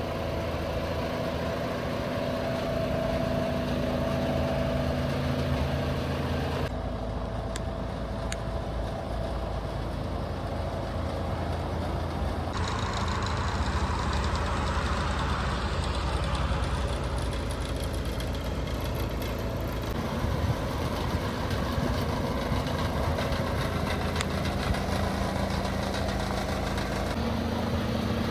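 2016 DAF CF330 lorry's 10.8-litre six-cylinder diesel engine idling steadily. Its tone shifts abruptly a few times.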